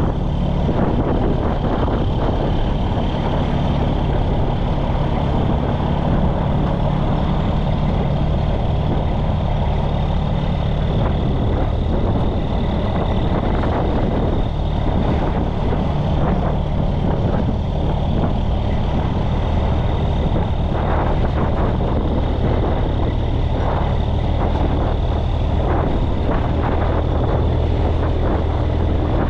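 Heavy wrecker's diesel engine running steadily under way.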